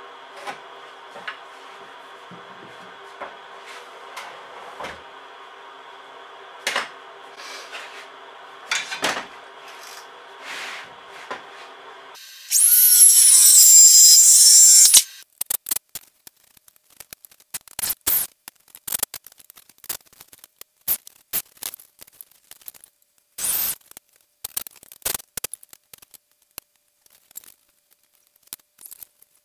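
Cordless circular saw cutting through a wooden board for about three seconds, its motor whine falling as it winds down, about twelve seconds in. Before it a steady low hum; after it a run of sharp knocks and clatters of boards and tools being handled.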